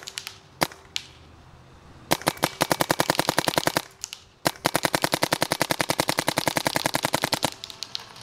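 Vanguard Creed paintball marker firing: two single shots, then a rapid string of about ten shots a second for nearly two seconds. A single shot follows, then a longer rapid string of about three seconds.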